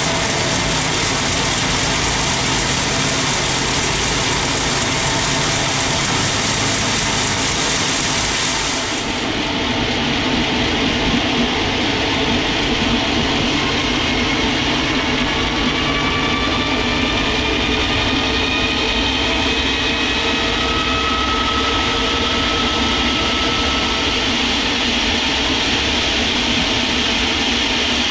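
Sawmill machinery running steadily, with a strong hiss for about the first nine seconds, then a lower running noise with faint whining tones that rise slowly in pitch.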